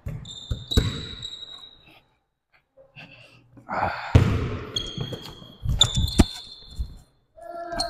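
Basketball dribbled and bounced on a court, in sharp thuds that come in two bursts of play. With them come high, drawn-out sneaker squeaks.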